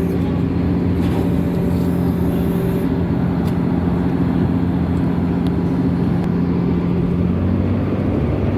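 Cargo ship's diesel engine running with a steady, even drone.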